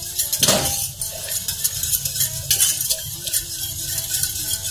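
Wire whisk beating against the sides and bottom of a stainless steel saucepan in quick strokes, with a louder clatter about half a second in. Cold butter is being whisked into a sauce reduction to emulsify it.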